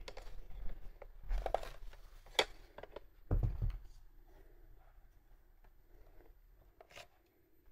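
Soft handling sounds of sandal ankle straps being fastened and adjusted: rustling and light clicks, with a few dull thumps in the first four seconds, then quieter rustling.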